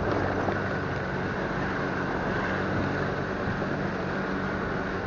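Motor scooter engine running steadily while riding at low speed, with wind noise on the handlebar-mounted microphone.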